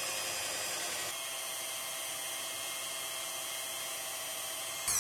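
Electric drill in a homemade drill-press stand running at steady speed, its twist bit cutting a hole through a steel flat bar with a steady high whine. Near the end the drill is stopped and its whine falls in pitch as it spins down.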